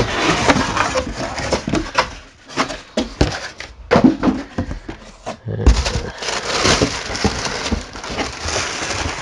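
Cardboard packaging inserts being lifted and shifted inside a cardboard box, with knocks and scraping, followed by a longer stretch of paper rustling as tissue-paper wrapping is pulled out.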